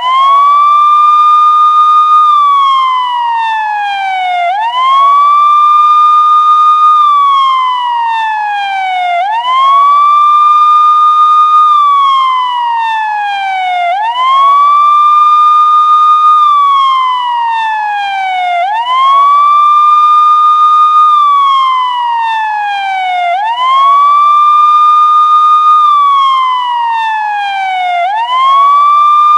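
Police siren sounding a steady wail. The pitch sweeps up quickly, holds high for a moment, then slides slowly back down, over and over about every five seconds.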